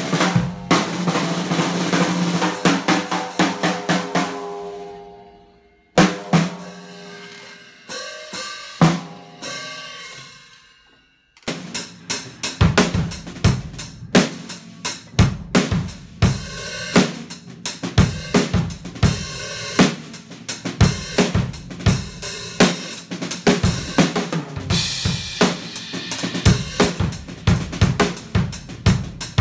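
Mes acoustic drum kit being played: a dense run of snare, tom and cymbal strikes that dies away after about four seconds, a few single strikes left to ring, then from about a third of the way in a steady groove of bass drum, snare and hi-hat/cymbals.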